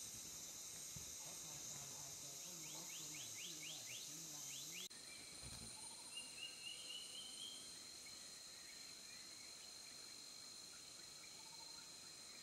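Faint forest ambience: a steady high buzz of insects, with a quick run of short rising bird chirps just before a sudden change about five seconds in, then a short series of bird notes.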